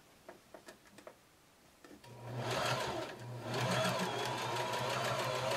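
Electric sewing machine running at a steady speed, stitching through layered quilt fabric. It starts about two seconds in, after a few faint clicks.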